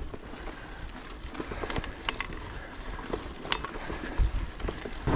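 Mountain bike rolling along a dirt forest trail: tyre noise on the ground with scattered clicks and rattles from the bike, and a low thump about four seconds in.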